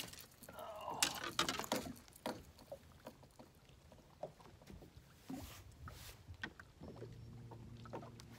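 Scattered clicks and knocks of fishing tackle and rods being handled on a bass boat's front deck. About seven seconds in, a steady low electric hum starts, typical of a bow-mounted trolling motor running.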